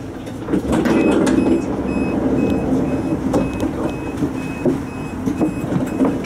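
Steady low hum and rumble of a tram, with a string of short high electronic beeps repeating about three times a second from about a second in.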